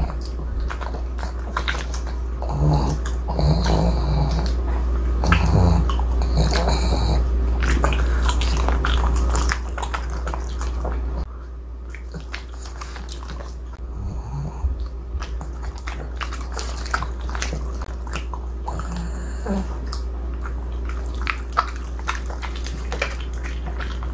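Pug chewing and smacking its lips on a sticky, chewy egg tart made with glutinous-rice flour, with many quick wet clicks; the chewy dough makes the pug slow to chew and swallow. A few short pitched sounds come between about three and seven seconds in.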